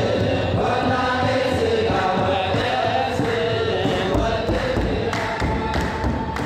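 Eritrean Orthodox choir singing a mezmur hymn together to steady beats on kebero drums, with hand clapping; the drumming grows heavier about four seconds in.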